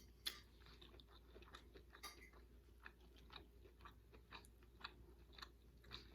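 Faint close-up chewing of a mouthful of baked salmon and green beans: soft, irregular wet mouth clicks a few times a second.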